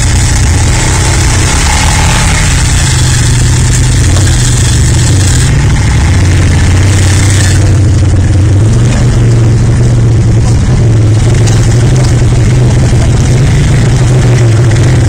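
Quad (ATV) engine running steadily and loudly, working up a steep muddy climb, its pitch rising and falling a little.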